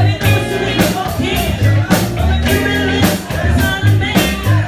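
Live band playing with a steady drum beat, bass and electric guitar, and a voice singing over it.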